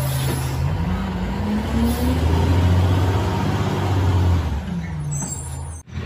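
Large truck engine running, its pitch rising about a second in, holding, then dropping back near the end, with a steady hiss over it; the sound cuts off suddenly just before the end.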